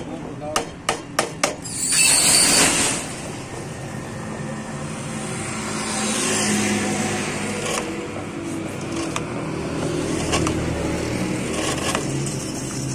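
A few quick scraping strokes of a file roughening a motorcycle inner tube, then the steady sound of road vehicles running and passing, with a loud rushing hiss about two seconds in.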